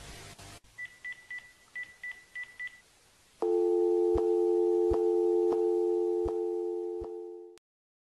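Telephone line tones as a recorded phone call ends: a string of short high beeps, then, about three and a half seconds in, a steady two-note dial tone with faint evenly spaced clicks, which cuts off abruptly near the end.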